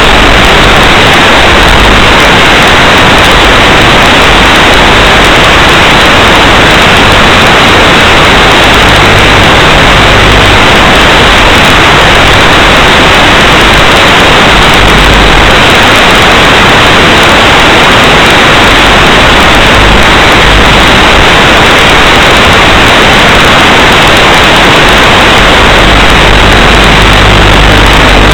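Loud, steady hiss of radio static, unchanging throughout: the analog FPV video link's audio channel, recorded on the goggles' DVR, carrying noise rather than the micro quadcopter's motors.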